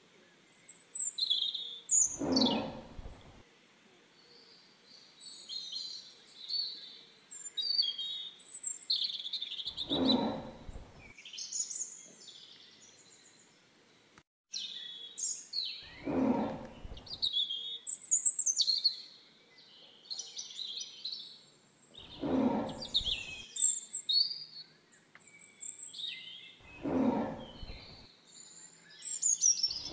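Tiger roaring in low, roughly one-second growls about every six seconds, over steady chirping and singing of birds.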